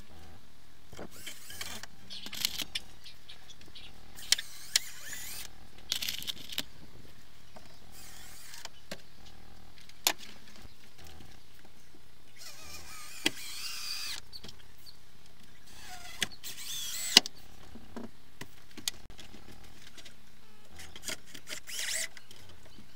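Cordless drill driving screws into timber in several short bursts, with a wavering motor whine, between sharp knocks and clatter of wood and tools.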